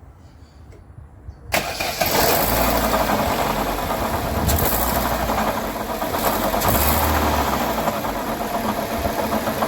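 Chevrolet Sonic (sold as the Aveo) car engine cranking and starting about a second and a half in, then running steadily at idle. The engine has a strange noise that the mechanic sets out to locate.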